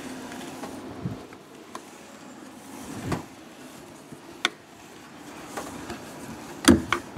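Unglued PVC pipe fittings being twisted and pulled apart by hand: scattered plastic knocks and scrapes, the loudest two near the end.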